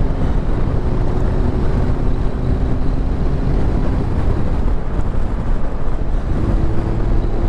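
Motorcycle engine running under throttle while riding, mostly buried under a steady rush of wind over the microphone.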